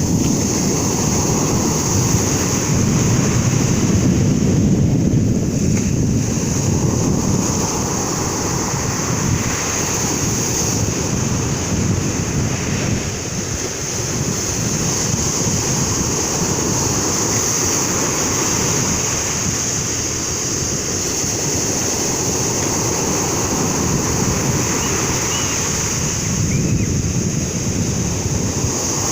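Sea waves breaking and washing in, a continuous surging rush, with wind buffeting the microphone.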